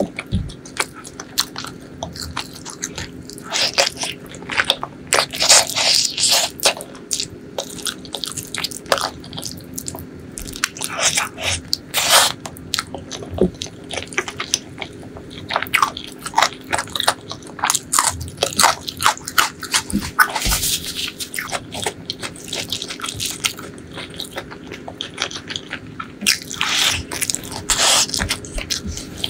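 Close-miked eating sounds: a person chewing mouthfuls of rice and butter chicken curry, with wet mouth clicks and smacks coming in quick, irregular runs.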